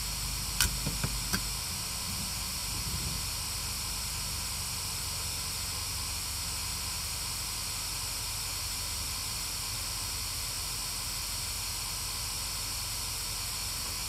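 Steady white-noise hiss from a GhostTube spirit-box app, with two short clicks in the first second and a half.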